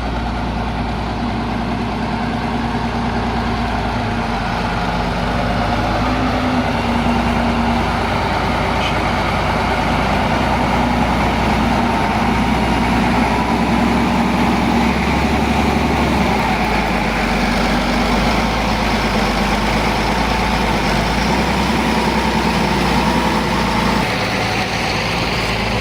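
Heavy diesel engines of road-construction machinery or trucks running steadily, their low engine note wavering slightly in pitch.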